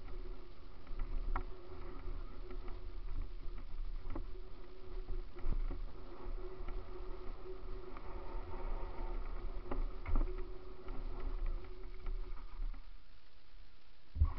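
Mountain bike riding fast down a rocky gravel trail: a steady rumble of tyres and wind, with frequent sharp rattles and knocks as it hits stones. A steady whining tone runs under it and stops about a second before the end, and there is one loud knock near the end.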